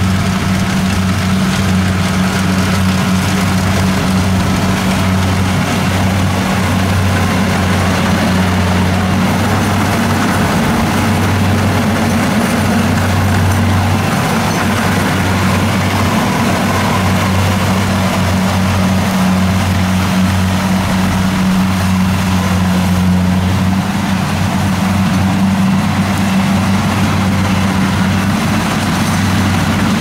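Kubota DC70 combine harvester's diesel engine running steadily under load while it cuts rice: a loud, even drone.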